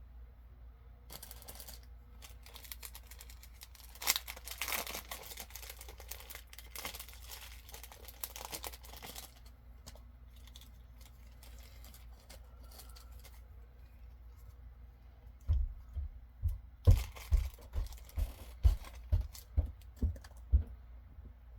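Plastic packaging crinkling and tearing as it is handled and opened. Near the end come a dozen or so dull knocks, about two a second.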